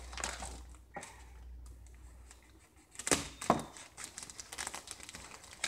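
Plastic and packing material crinkling and rustling as a boxed computer is unpacked by hand, with two sharp, loud sounds half a second apart a little after three seconds in.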